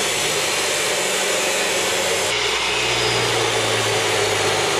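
Abrasive chop saw grinding steadily through thick steel oil well pipe, its cut-off wheel worn down to a smaller diameter. The tone changes about halfway through.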